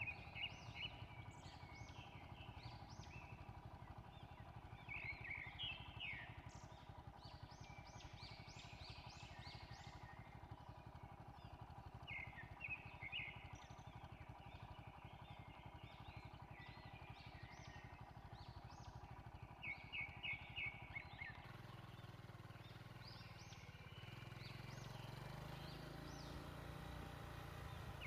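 Birds chirping in scattered clusters of short, quick high notes over a faint, steady low hum.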